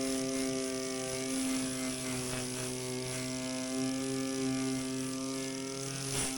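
Power tool with a wire wheel running steadily against sheet metal, its motor drone overlaid by a high scratching hiss as it strips the surface off the metal.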